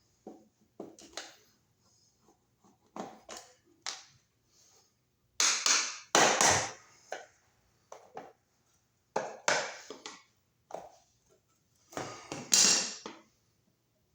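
Irregular knocks, taps and clatter of hands and tools at work, with a few longer, louder scraping or rustling sounds in the middle and near the end.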